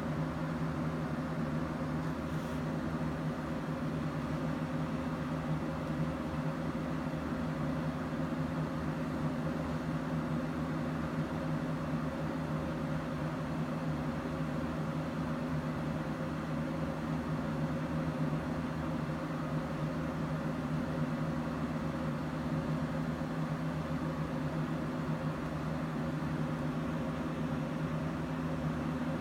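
Steady mechanical hum: a low, even drone that holds unchanged throughout.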